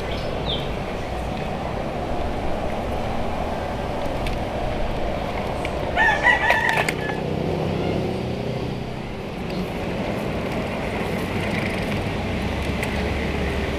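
A rooster crows once, about six seconds in, a loud call of about a second, over a steady low background noise.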